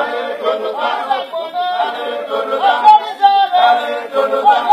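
A group of voices singing together in chorus, with several melodic lines overlapping.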